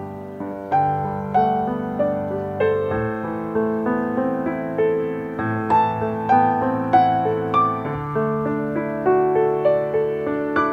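Background piano music: a slow melody of held notes, a new note struck about every half second to second.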